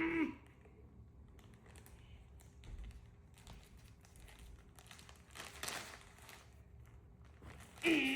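Blind-box toy packaging crinkling and rustling as it is handled and opened, with a louder rustle about five and a half seconds in.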